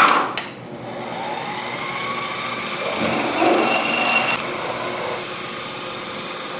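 A sharp clack, then a Sherline mini mill's spindle motor spinning up with a rising whine and running steadily while a size 20 drill bit is fed into an aluminum block.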